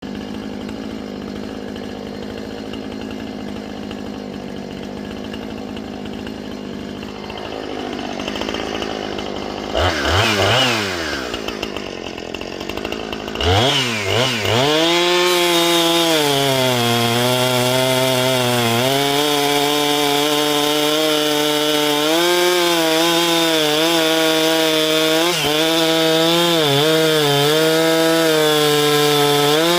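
Husqvarna chainsaw engine: a low steady hum for the first ten seconds, then the engine bursts into life and dies away about ten seconds in. It starts again about three seconds later and revs up to high speed, holding there with its pitch sagging now and then under load.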